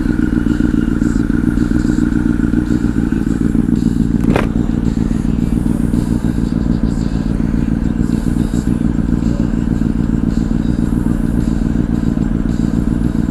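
Honda CBR1000 inline-four motorcycle engine with a Two Brothers aftermarket exhaust running steadily at a cruise, with wind noise over the microphone. A brief click comes about four seconds in.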